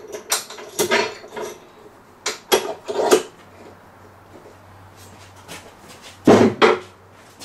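Sharp clanks and knocks of steel sash clamps being adjusted and tightened against a glued-up panel of scaffold boards: a cluster of knocks in the first three seconds, then a louder pair about six and a half seconds in.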